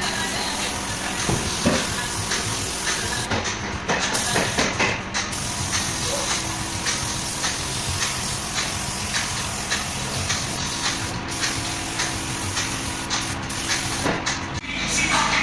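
Pneumatic paint spray gun hissing as it sprays paint onto a car body, with a few short breaks in the spray.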